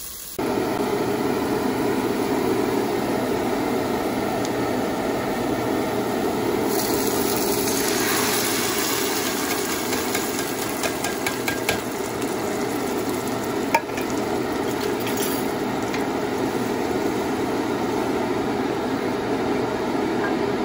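Steady, loud stovetop cooking noise: a pot of coconut milk sizzling and being stirred, over a constant fan-like hum. A few light clicks against the pot come around the middle.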